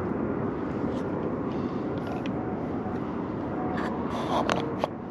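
Steady wind rumble buffeting the microphone in an open boat, with a few short clicks and knocks of handling a little before the end.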